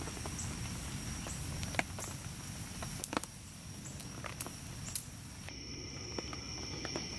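Thin-sliced pork belly grilling on a wire rack over charcoal, with scattered crackles and pops over a low hiss. About five seconds in the crackling thins out and a faint steady high tone comes in.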